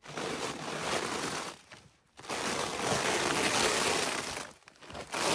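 Crackling rustle of stiff sheet material being handled, coming in three stretches of a second or two each.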